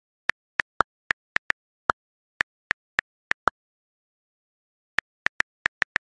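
iPhone on-screen keyboard click sounds: short single ticks, one per key tap, a few of them slightly lower in pitch, with silence between. About a dozen come in an uneven typing rhythm, then a pause of about a second and a half, then a quick run of taps near the end.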